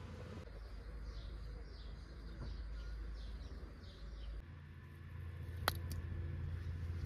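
A bird calling a quick series of short, falling chirps, about two a second for some four seconds, over a steady low rumble. Later a single sharp click, the loudest sound.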